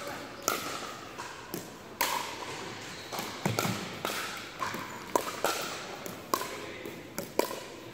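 Pickleball paddles striking a hard plastic ball in a rally, a string of sharp pops about one a second that ring on in a large gym, with short sneaker squeaks on the hardwood floor between hits.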